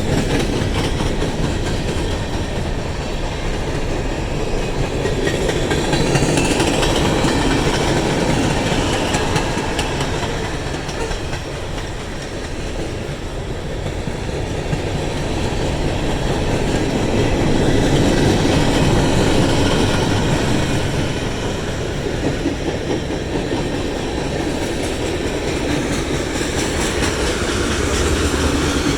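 A moving train's cars rolling along the rails: a steady, loud noise of wheels on track that eases slightly about twelve seconds in and builds again a few seconds later.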